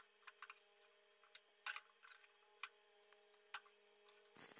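Near silence over a steady low hum, broken by a few faint metallic clicks from handling a clamped steel patch panel and tools. Near the end a short crackling burst starts, the start of MIG welding on the seam.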